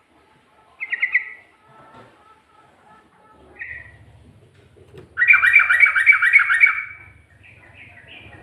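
Yellow-vented bulbul (trucuk) singing: a short burst of quick chirps about a second in, then, about five seconds in, a loud fast run of repeated notes lasting nearly two seconds, followed by a few short notes near the end.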